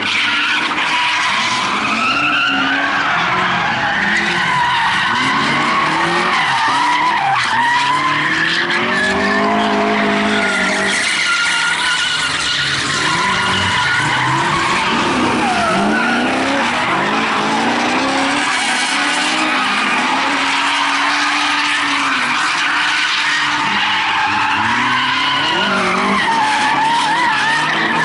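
Drift cars sliding around a track: their engines rev up and down again and again as the drivers hold the slides, with the tyres skidding and squealing.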